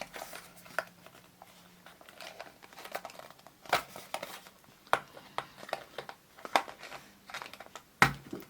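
Mystery pin box packaging being worked open by hand: scattered crinkles, small clicks and tearing sounds.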